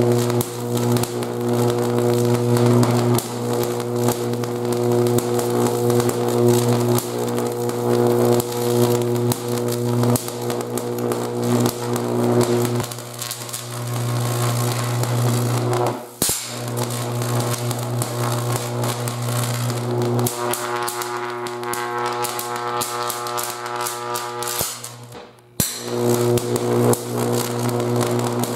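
High-voltage arc from a 125,000-volt x-ray transformer striking an orange: a loud, steady electrical buzz with crackling all through. It cuts out briefly about halfway through and again near the end.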